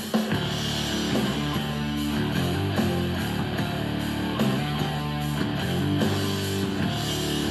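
Rock music with a strummed, distorted electric guitar and a steady beat, played through a Bluetooth speaker as a sound demo.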